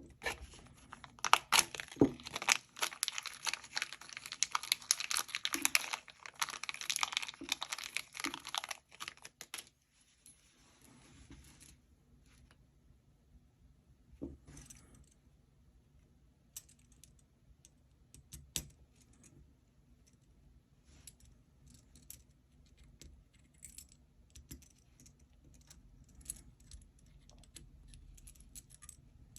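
KTS Gear Storm aluminium gear fidget being cranked and handled: a dense run of metallic clicking and rattling for the first nine seconds or so, then scattered single clicks.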